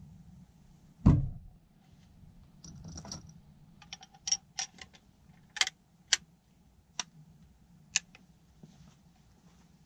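The action of an 1884 Springfield trapdoor rifle being worked by hand to reload: about six sharp metallic clicks as the hammer is cocked and the hinged breechblock is opened and snapped shut. About a second in comes a single dull thump, the loudest sound.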